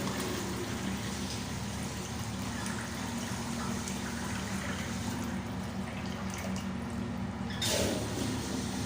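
Water running steadily from a restroom plumbing fixture, over a low steady hum, with a brief louder rush near the end.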